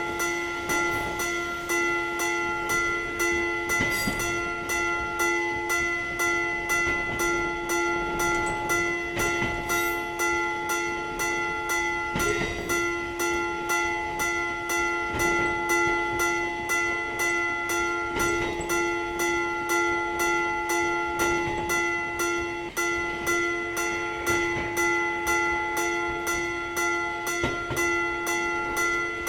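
Japanese railroad level-crossing warning bell ringing its 'kan-kan' alarm, a ringing tone struck over and over in a steady, even rhythm.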